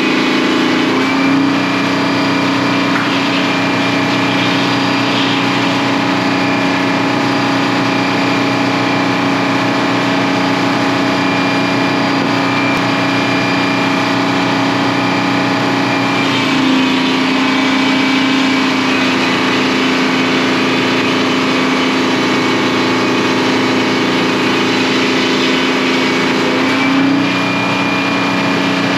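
Stationary diesel engine powering a sawmill, running steadily. Its note shifts between two steady pitches about a second in, again midway, and near the end, as the load on the mill comes and goes.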